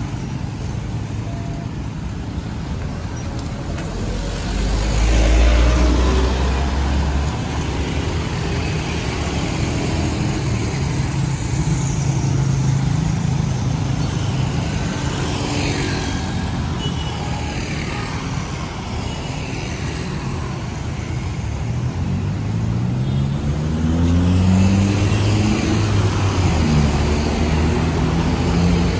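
City road traffic: motorcycles and cars passing, with a heavy vehicle's low rumble about five seconds in and an engine speeding up with rising pitch near the end.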